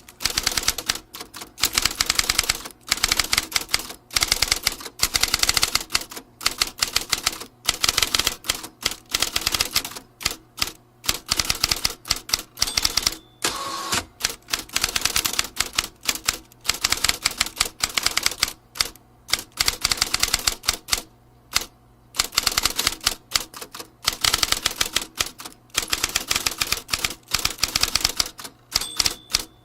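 Vintage typewriter being typed on: keys striking in fast runs of many clicks, broken by short pauses.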